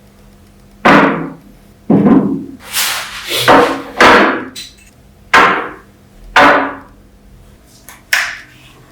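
Hammer blows on metal: a series of about eight irregular strikes, each followed by a short ringing fade.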